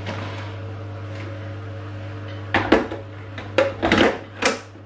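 A quick series of hard plastic clunks and knocks as a countertop blender pitcher is handled and seated on its motor base, over a steady low hum. The blender motor is not yet running.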